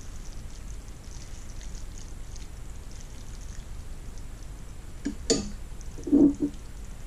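A spatula stirs saucy pasta in a stainless steel frying pan with a faint sizzle. About five seconds in the spatula is set down in a small bowl with a sharp knock, followed shortly by a dull thud.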